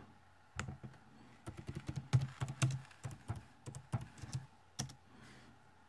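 Typing on a computer keyboard: a run of irregular key clicks lasting about four seconds, stopping about five seconds in.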